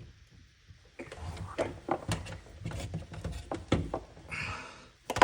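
Hand tools clicking, knocking and scraping against a dishwasher's parts while a clamp is being worked off. There is a run of irregular sharp knocks and a short scrape near the end.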